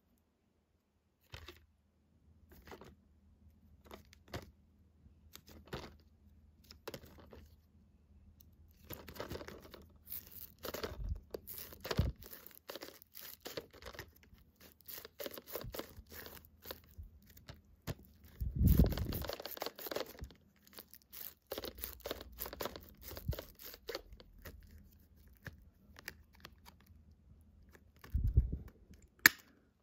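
Plastic shrink-wrap on a DVD case crinkling and crackling as fingers pick and peel at it, in scattered small crackles with a louder burst about two thirds of the way through and a short one near the end.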